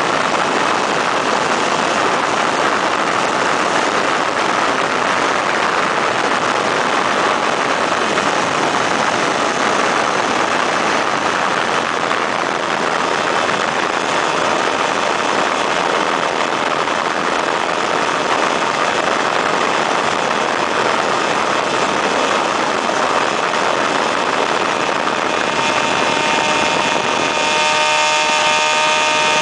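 Weedhopper ultralight's two-stroke engine running steadily in flight, mixed with heavy wind rush over the microphone. Near the end the engine's humming tone comes through more distinctly.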